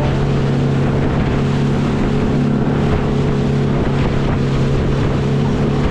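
Chase RIB's engine running steadily at speed, one even pitch throughout, over rushing water and wind on the microphone.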